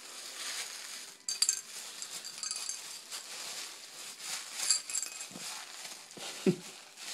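White packing paper crinkling and rustling in a small child's hands, with a few short metallic clinks, about one and a half, two and a half and nearly five seconds in.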